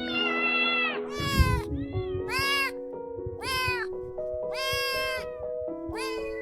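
Kitten meowing repeatedly, about six high, rising-and-falling meows, over background music with steady sustained notes. A low thump about a second and a half in.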